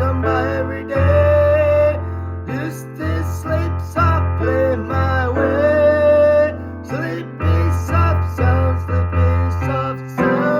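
A solo voice singing a slow song over piano accompaniment, with long held notes about a second in and again around the middle.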